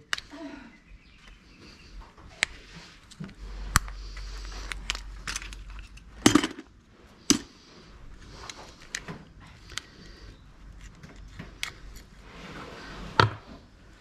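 Small metal clicks, clinks and scrapes at irregular intervals as a small microwave motor is pulled apart by hand for its copper coil, with one sharper knock about six seconds in.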